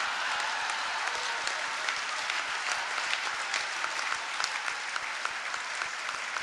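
Large banquet audience applauding after a punchline: a dense, steady patter of clapping that eases off slightly toward the end.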